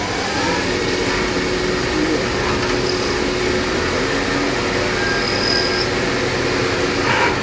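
CNC lathe running, a steady machine noise with a constant low tone and a faint high whine that comes and goes.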